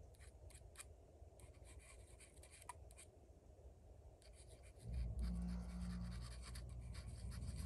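Faint handling noise of a threaded pistol barrel being turned in the fingers over a gun mat: light scratching and rubbing with small scattered clicks. About five seconds in, a low steady rumble comes in.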